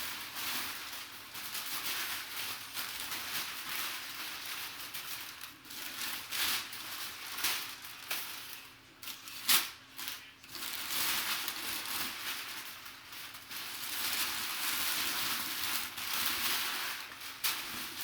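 Cardboard box and packing being handled and opened: steady crinkling and rustling of cardboard and wrapping, with one sharp knock about nine and a half seconds in.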